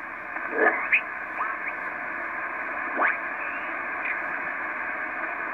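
Heathkit SB-101 shortwave transceiver's receiver hissing with band noise through its speaker, held inside the narrow voice passband. A few short whistles of signals slide past as it tunes, and one rises quickly in pitch about three seconds in.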